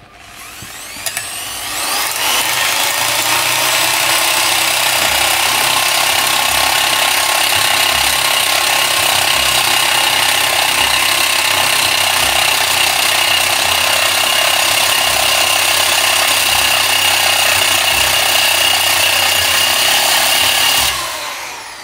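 Electric drill fitted with a cutting disc running at full speed: it spins up over about two seconds, holds a steady high whine with a dense hiss, and winds down near the end.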